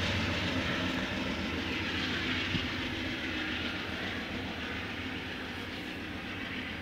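GE P42 diesel locomotive pushing a departing passenger train away under power, its engine running steadily with wheel and rail noise, fading slowly as it recedes.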